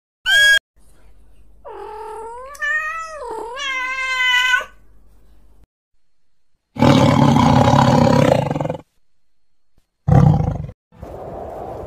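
A string of separate animal calls: a short high call, then a drawn-out wailing call that bends in pitch, then a rough roar-like call about two seconds long, and a short grunt near the end.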